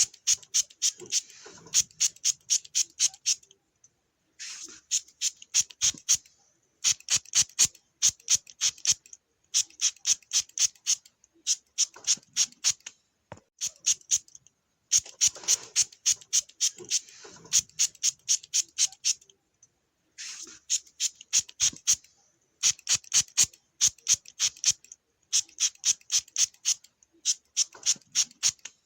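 A hand spray bottle squirted in quick series of short hissing sprays, about four or five a second, in runs of a couple of seconds with brief pauses between.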